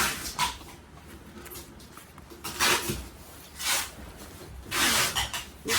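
Rustling of a nylon down jacket's shell fabric as it is handled: four short hissy swishes, about a second or two apart.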